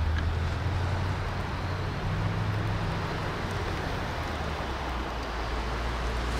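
Mercedes-AMG GT 63 S 4-Door Coupé's 4.0-litre twin-turbo V8 running at low revs as the car rolls slowly past. A steady low engine note that swells slightly about two seconds in.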